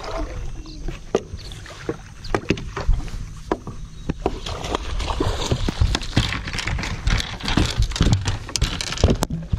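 Sounds aboard a Skeeter bass boat: a steady low rumble under many short, sharp knocks and clicks.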